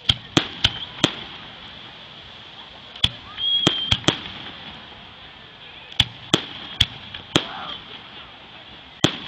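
Aerial fireworks shells bursting in quick clusters of sharp bangs, about thirteen in all, three or four at a time with short gaps between the clusters.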